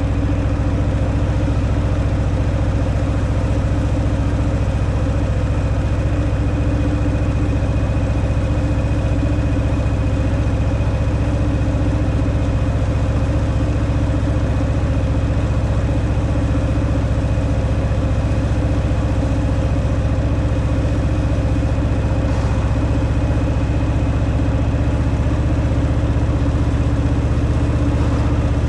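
Harley-Davidson Fat Boy's V-twin engine running steadily through its stock exhaust, holding an even engine speed with no revving.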